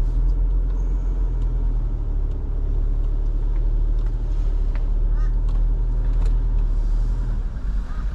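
The tow vehicle's engine and tyres while driving slowly on soft beach sand, heard inside the cabin: a steady low drone that drops away near the end.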